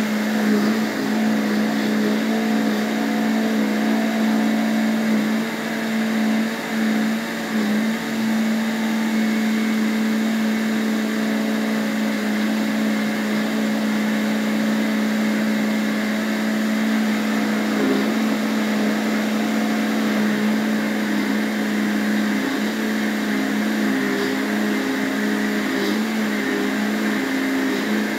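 Electric countertop blender running at full speed, blending milk and parsley into a cream; its motor hum is steady, wavering briefly a few seconds in.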